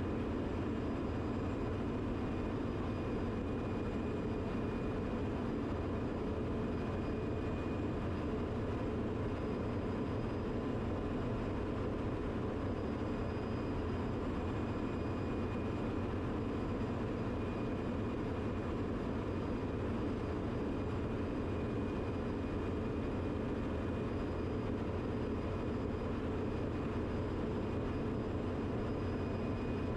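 Steady drone of a ship's engine-room machinery running, with a thin constant whine above it.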